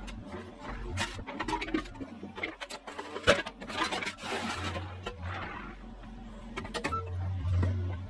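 Mini excavator's diesel engine running while its bucket scrapes and knocks against broken concrete slab pieces, with a sharp knock about three seconds in and a grinding scrape soon after. The engine noise rises near the end.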